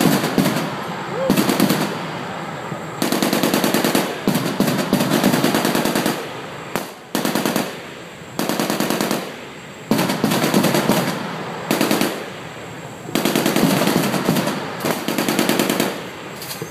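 Shipboard machine gun firing about seven bursts of rapid automatic fire, each burst lasting from under a second to about three seconds, with short pauses between.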